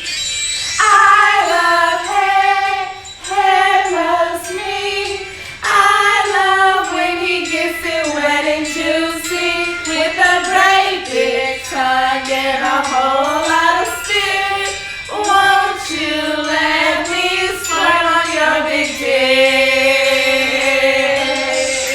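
A recorded song playing back, a female voice singing a melody in long held and gliding phrases over light backing music.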